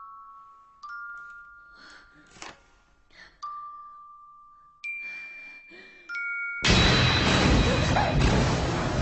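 Slow, sparse chime-like notes from the film's soundtrack, each struck and ringing away, two pitches sounding together, then about two-thirds of the way in a sudden loud, harsh wall of noise cuts in and holds.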